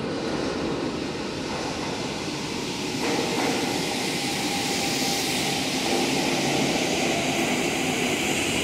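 New York City Subway G train pulling into an underground station: a steady rumble and rattle of wheels on the rails that grows a little louder about three seconds in, with a faint whine over it.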